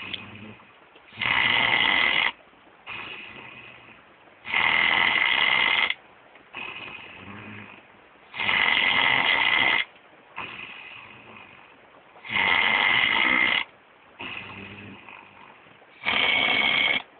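Pit bull snoring in its sleep: five loud snores about every four seconds, each lasting over a second, with a softer breath between each.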